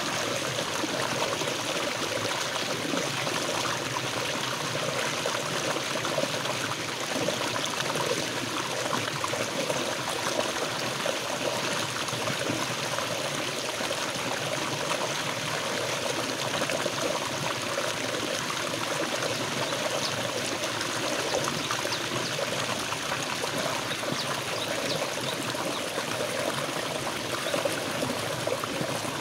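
Small river cascade pouring over boulders into a pool: a steady, unbroken rush of water.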